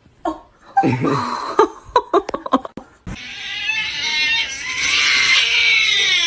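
A cat yowling: a long, drawn-out, wavering yowl that starts about three seconds in. Before it come a couple of seconds of shorter sounds and a few sharp knocks.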